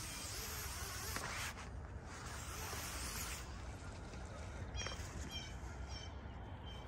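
Birds calling: a series of short, high calls repeated several times in the second half, over a steady outdoor hiss.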